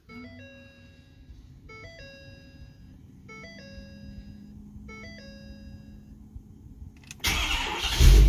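Ford Super Duty dashboard warning chime, a falling two-tone chime repeating four times about every 1.7 seconds, with the driver-door-ajar warning showing. About seven seconds in, the 6.7 Power Stroke diesel cranks and fires up near the end, started for the first time after fuel-system work to check for leaks.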